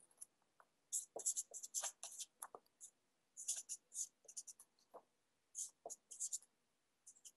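Handwriting: a pen scratching out short strokes in quick irregular bursts, with brief pauses between groups, as an integral is written out.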